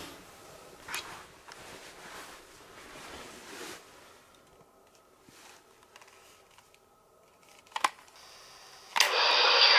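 Soft rustling and a few clicks of handheld equipment being handled, then about nine seconds in a click and a loud steady hiss starts from the speaker of a portable cassette recorder.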